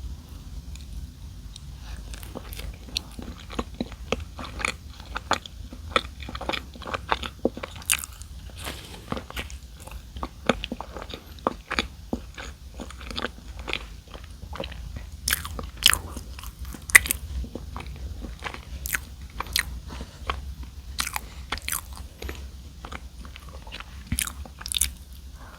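Close-miked biting and crunching of donuts, a dense run of crisp crunches and chews starting about two seconds in.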